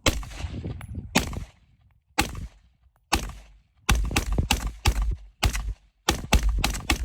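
Gunshots: single shots about a second apart, then from about four seconds in faster strings of several shots a second, each with a short ringing tail.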